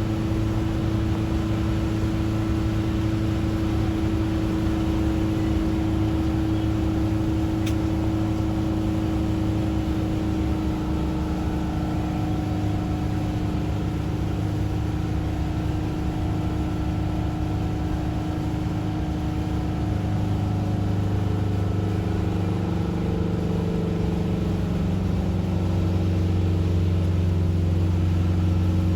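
Car cabin noise while driving: a steady engine and road drone whose pitch drifts slowly up and down, with one faint tick about eight seconds in.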